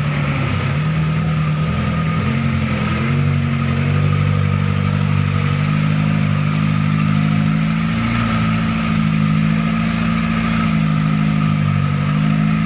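Truck engine running steadily under load, its pitch rising and easing a little as the throttle changes.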